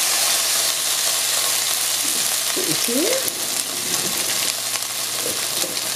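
Shredded hash brown potatoes sizzling steadily in hot oil in a nonstick pan, freshly poured in, the sizzle easing slightly as it goes.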